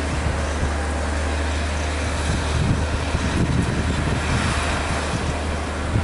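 Heavy construction machinery running, a steady low engine drone under continuous mechanical noise.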